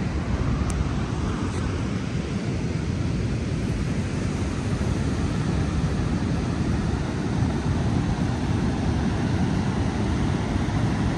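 Ocean surf breaking and washing up a sandy beach, heard as a steady noise, with wind rumbling on the microphone.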